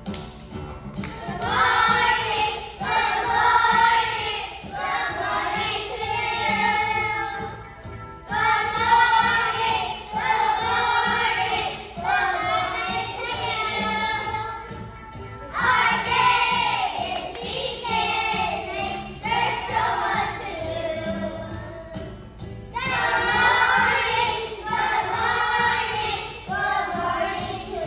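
A group of young children singing a song together over musical accompaniment, in short sung phrases with brief pauses between them.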